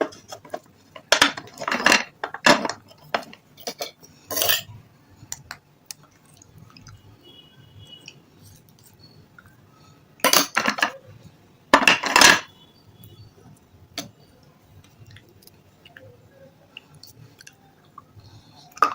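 Close-up crunching bites into something hard and brittle: a run of bites in the first five seconds, then two more crunching bursts about ten and twelve seconds in, with quiet chewing between.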